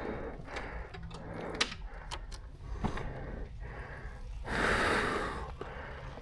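A man breathing hard, out of breath from pushing a motorcycle, with one long heavy exhale about three-quarters of the way through. A few light clicks come earlier.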